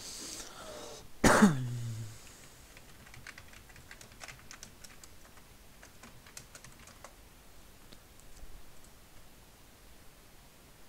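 Typing on a computer keyboard: a run of light, irregular key clicks as a search is entered. About a second in comes a short, loud vocal sound from a man, falling in pitch.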